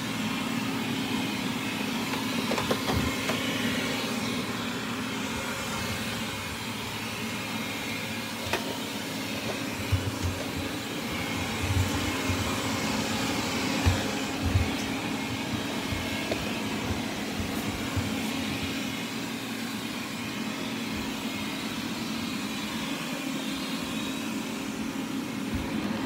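Wyze robot vacuum running: a steady whirring hum of its suction fan and brushes, with a few dull knocks along the way.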